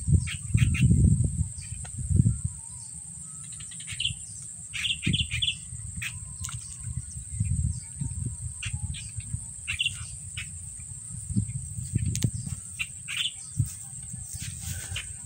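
Birds chirping in short calls over a steady high-pitched insect drone, with irregular low rumbles that are loudest in the first two seconds.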